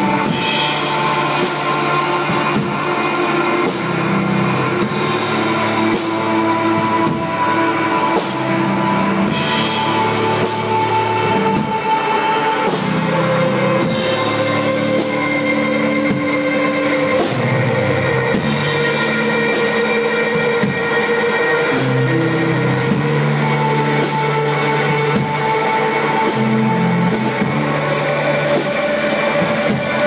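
A post-rock band playing live: a drum kit with frequent cymbal and drum strikes under electric guitar and bass holding long notes that change pitch every few seconds.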